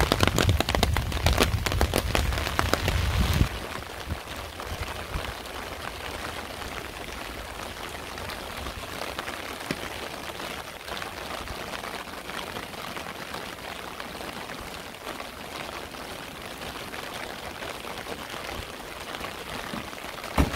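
Rain falling. For about the first three and a half seconds, close, heavy drops patter loudly and densely. The sound then drops suddenly to a steady, softer hiss of rain.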